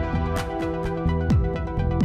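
Electronic background music with a steady beat: sustained synth chords over a kick drum.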